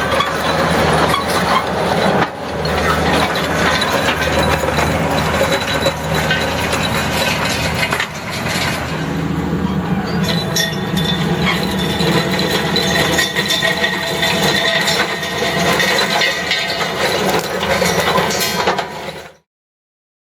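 New Holland L185 skid steer's engine running under load while its Woods/Gill soil pulverizer attachment churns through soil, with a continuous clinking, cracking clatter of stones and clods against the drum. The engine note shifts higher about eight seconds in, and all sound stops abruptly about a second before the end.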